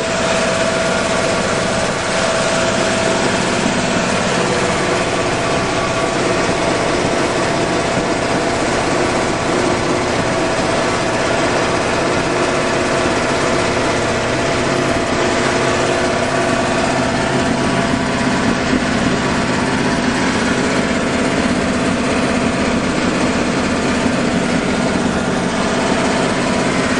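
An engine running steadily, with an even hum that holds without change.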